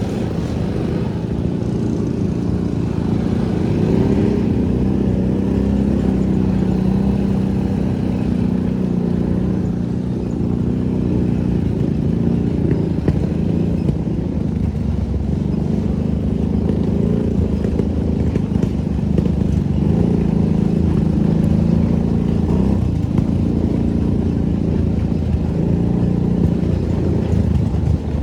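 ATV engine running while riding, a steady drone whose pitch shifts up and down a little with the throttle.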